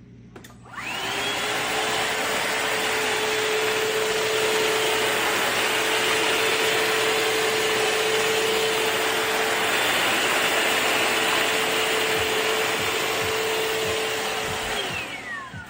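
Shark VacMop Pro cordless vacuum mop's motor switched on: it spins up with a rising whine less than a second in, runs steadily with a loud whirr of rushing air, then winds down with a falling whine near the end.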